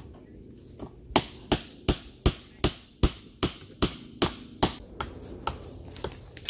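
Hammer driving a nail that fixes woven-wire fencing to a living tree trunk used as a post: a quick, even run of about a dozen strikes, roughly three a second, that stops about a second before the end.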